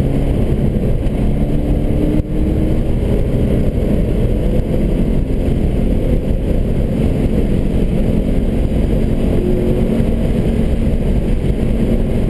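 Subaru BRZ's flat-four engine running under load at track speed, heard from inside the cabin over a heavy low rumble of tyre and road noise. The level dips briefly about two seconds in.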